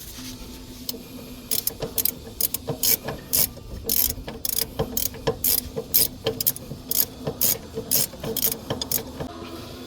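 Ratchet wrench being cranked in steady strokes, its pawl clicking about two to three times a second over a steady low hum, as a fastener on the forklift's steering linkage is worked loose.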